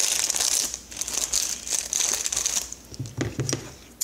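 Clear plastic shrink wrap crinkling and rustling as hands work at it to open the package. The crinkling is dense for the first two and a half seconds or so, then quieter.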